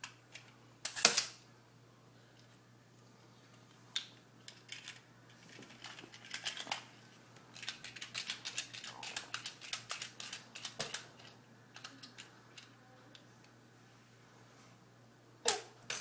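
A tape measure being handled, clicking and rattling: a loud sharp click about a second in, a run of rapid clicking through the middle, and another loud click near the end.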